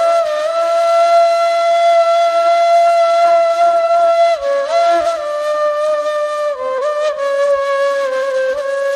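Ney, the Turkish end-blown reed flute, playing a slow free-rhythm taksim in makam Segah. Long held notes with small ornamental turns between them step lower in pitch about four seconds in and again about six and a half seconds in.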